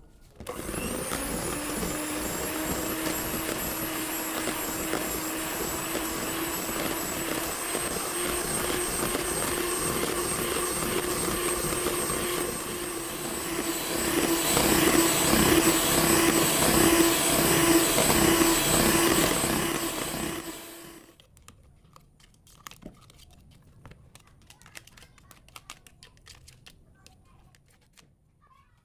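A small electric motor appliance switched on, spinning up and running steadily with a whirring hum. It gets louder about halfway through, then is switched off and stops suddenly. Light clicks and taps follow.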